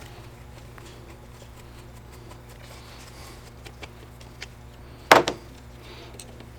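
Parts and tools being handled during disassembly of a cordless leaf blower: a few faint taps, then a sharp double knock about five seconds in, over a steady low hum.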